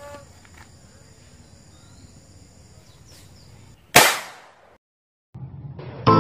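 A homemade PVC marble gun fires once: a single sharp bang about four seconds in, with a short ring-out.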